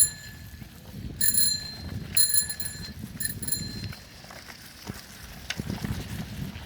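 A bicycle bell rung over and over: a bright metallic ring at the start, then several more quick rings during the next three and a half seconds.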